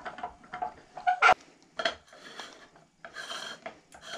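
Metal telescope parts clinking and scraping as a camera and filter wheel are unscrewed and lifted off a refractor's focuser. There are a few sharp clicks in the first two seconds, the loudest about a second in, then softer rubbing.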